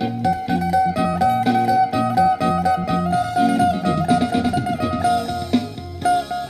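Three-string phin, the Isan lute, plucked in a quick, lively melody over a steady high drone note, with low steady bass notes beneath.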